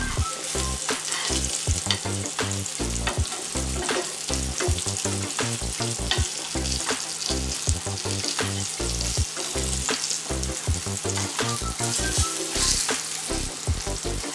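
Flour-dredged meatballs sizzling as they fry in oil in a frying pan, with frequent sharp clicks of a fork and spoon turning them against the pan.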